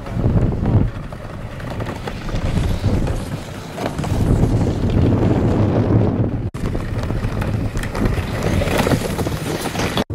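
Wind buffeting the microphone over the rumble and hiss of a two-seat iceboat's runners on ice as it sails past at speed. The sound cuts out for an instant twice, about six and a half seconds in and near the end.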